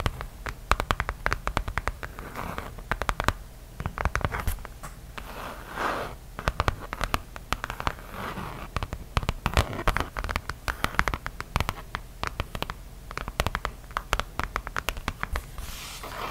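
Long fingernails tapping and scratching on a dark leather zip pouch held close to the microphone: quick, irregular nail taps with a few longer scratching strokes.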